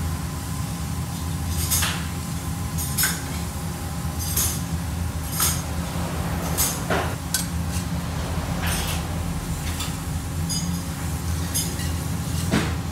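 Light metallic clinks, about one every second, over a steady low kitchen hum, as a burger is handled and stacked on a ribbed steel griddle.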